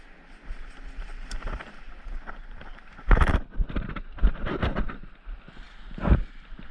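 Irregular thumps and rustling of a player's footsteps and gear while moving, with a cluster of heavier thumps about three seconds in and another near the end.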